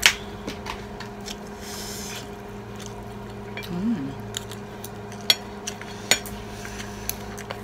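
Spoon and fork clinking and scraping on plates while eating, with a sharp clink right at the start and two more past the middle, over a steady low hum.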